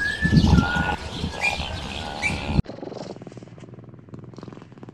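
Wild birds chirping in short rising calls over a low rumbling noise, then after an abrupt cut a cat purring, a quieter, fast, even pulsing.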